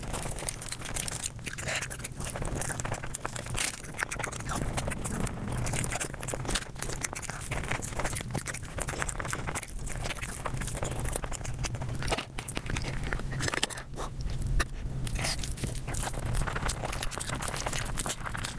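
Close-miked mukbang eating sounds sped up five times: a dense, continuous run of rapid crunching, chewing and smacking mouth sounds.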